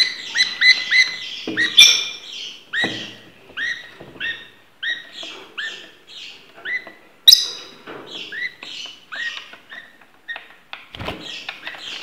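Budgerigars chirping: a long run of short, downward-sliding chirps, a few a second, with a few sharp knocks among them.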